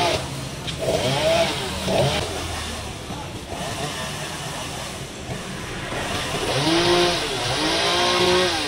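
Two-stroke chainsaw idling with its throttle blipped, each rev rising and falling in pitch: two short revs in the first couple of seconds and two longer ones near the end.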